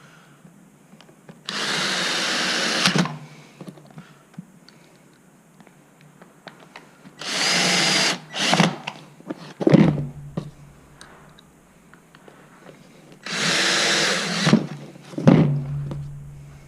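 Cordless drill-driver running in three short bursts of about a second and a half each, driving screws back into the base plate of a Zip lithium battery pack, with small clicks and knocks of handling between.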